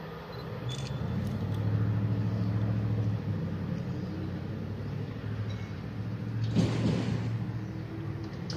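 A steady low engine drone that swells about a second in and holds, with a brief louder rush of noise a little past the middle.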